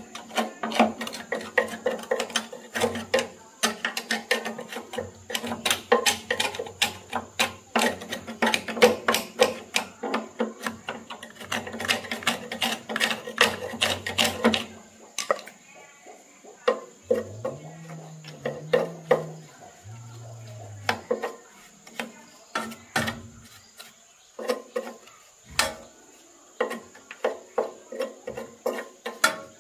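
Hand tool scraping and tapping in quick strokes against the rusty sheet-steel housing of an old banana chopper beside its electric motor. The strokes come thick and fast for about the first fifteen seconds, then slower and more spaced out.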